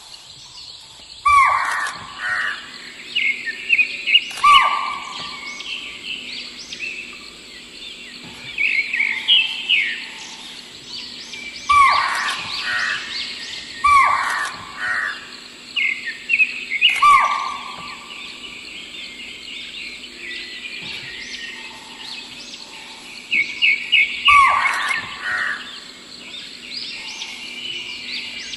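Forest birds calling: loud calls that fall in pitch, repeated every few seconds, over higher chirping and a faint steady hum.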